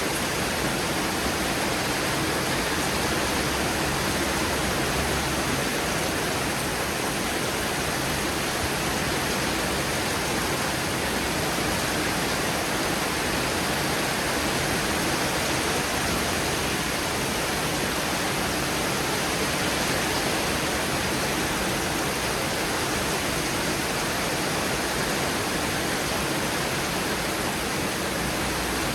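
Heavy rain of a thunderstorm downpour, a steady, even rushing hiss with no thunder or other events.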